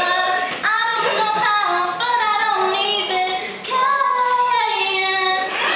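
A teenage girl singing solo, holding long notes that bend and waver between short breaths.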